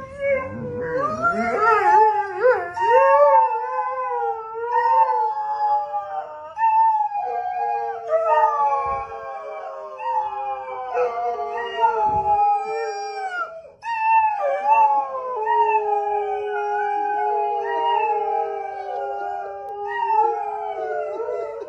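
Borzoi (Russian wolfhound) howling: long, wavering howls that slide up and down in pitch, going on almost without a break apart from a short pause about fourteen seconds in.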